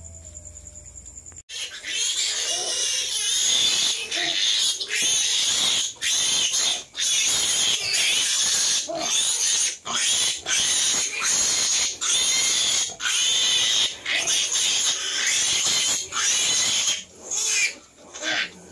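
Pigs squealing loudly, a long run of shrill cries with only brief breaks. It starts suddenly about a second and a half in and thins to a few last squeals near the end.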